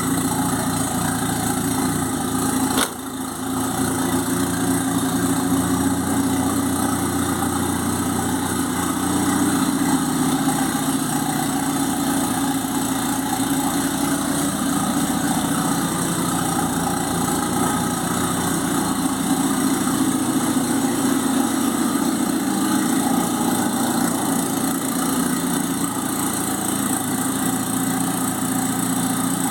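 Turbocharged Fiat 147 engine running steadily at idle. About three seconds in there is a sharp click and a brief dip in loudness.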